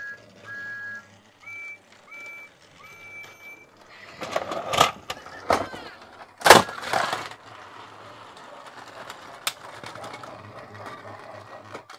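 Battery-powered Thomas & Friends Trackmaster toy engines on plastic track: a few short electronic beeping tones first, then a burst of loud plastic clattering and knocks, the loudest about six and a half seconds in, followed by the steady whir of a toy engine's motor with a single sharp click near the end.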